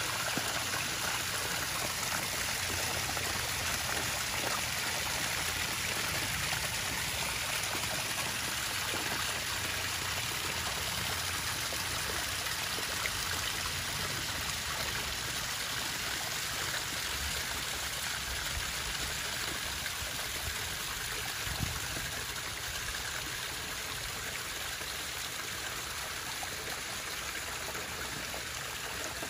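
Steady running, trickling water in a koi pond.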